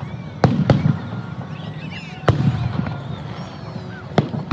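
Aerial firework shells bursting: four sharp bangs, two close together about half a second in, one just past two seconds and one near the end, each trailing off in a low rolling rumble.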